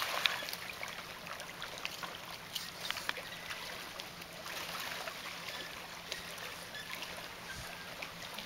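Small waves lapping at a sandy lake shore: a steady wash of water with scattered little splashes and drips.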